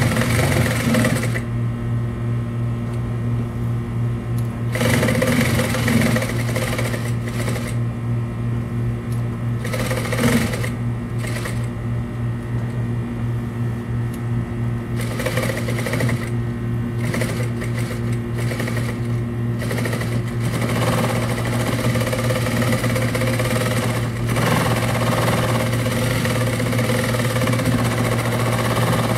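Consew 230 industrial lockstitch sewing machine stitching through a thick stack of folded denim, running in short bursts for the first twenty seconds or so, then more steadily, over the steady hum of its motor. The stack is about as thick as the machine should be asked to sew.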